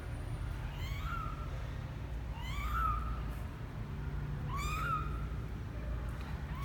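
A 12-day-old kitten mewing: three high, thin mews about two seconds apart, each rising and then falling in pitch, with another beginning at the very end.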